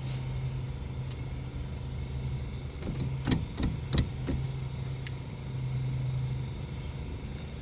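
A few sharp metallic clinks and knocks a little after three seconds in, from hand tools and caliper bolts being worked at a car's front brake caliper, over a steady low hum.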